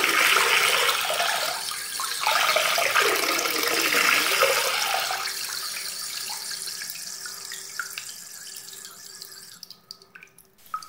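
Running, splashing water, a steady hiss that gradually fades away toward the end.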